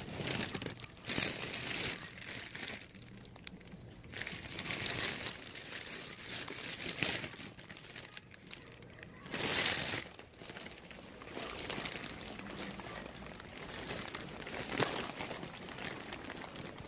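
Plastic-wrapped packs of dried rice noodles crinkling as they are handled, in uneven bursts, loudest about a second in and again about halfway through.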